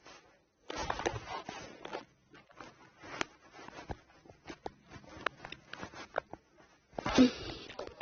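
Rustling and scattered light clicks and knocks, with a longer burst of rustling about a second in and another near the end.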